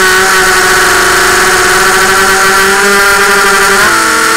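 Brushless motors and propellers of a 250-size FPV racing quadcopter whining steadily in flight, several tones together; near the end the pitch dips and wavers as the throttle changes.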